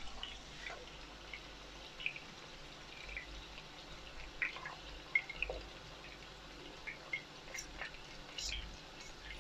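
Courgette pieces frying in hot oil in a pan: faint crackling with scattered small pops. A couple of sharper clicks near the end as the pieces are turned with metal tongs.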